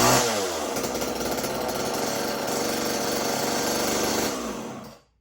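Homelite XL two-stroke chainsaw running: a brief rev that drops back to a fast idle, then the engine is shut off and winds down to silence just before the end. The owner judges the idle a bit too high, high enough to turn the chain.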